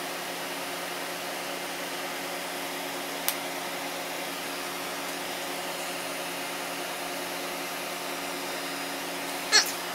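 Steady whir of an electric fan-type motor running throughout. A single sharp click comes about three seconds in, and a louder short crackle comes near the end as the plastic headlight housing is handled.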